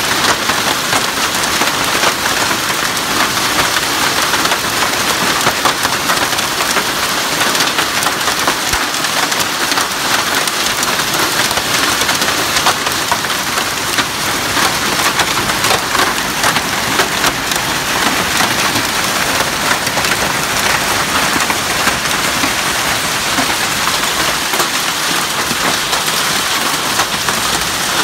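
Hailstorm with heavy rain: a steady, dense patter of hailstones and raindrops striking the ground.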